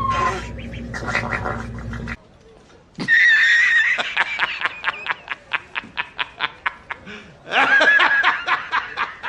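Quacking: a loud run of fast repeated calls about three seconds in that slows into separate pulses, then a second run near the end.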